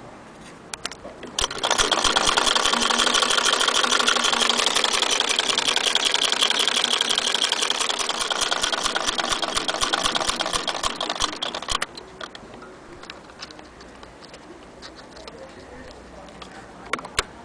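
1902 Singer 48K hand-crank sewing machine running fast: a rapid, even clatter of its mechanism that starts about a second and a half in and cuts off suddenly some ten seconds later. Light scattered clicks of handling follow.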